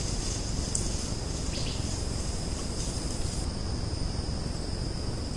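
Insects chirring steadily at one high pitch over a constant low background rumble, with a couple of faint brief high rustles in the first two seconds.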